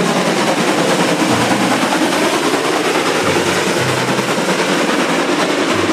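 Steam locomotive passing at speed while hauling a train, its exhaust beats running together in a loud, steady rush.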